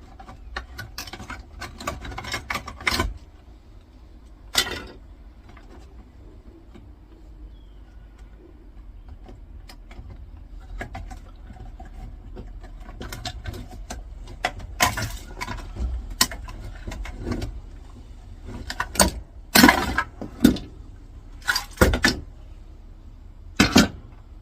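Plastic casing of an old electricity meter being pried and broken apart, with the metal mechanism inside knocking. Scattered sharp cracks, knocks and clinks, coming more often and louder in the second half.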